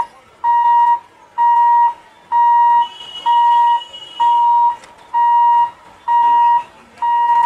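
Railway level crossing warning hooter sounding a steady electronic beep, each about half a second long and repeating about once a second, signalling that a train is approaching and the crossing is closed.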